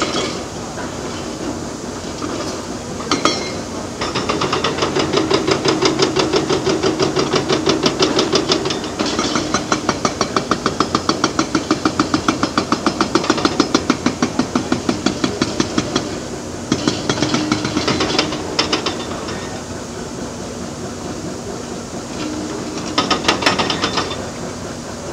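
Large hydraulic excavator working in hard rock: its diesel engine running under load, with long runs of rapid, even metallic clanking at about four strokes a second that stop and start several times.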